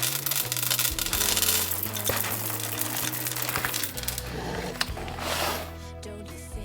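Busy rattling clatter of small hard objects over soft background music, easing off about four seconds in.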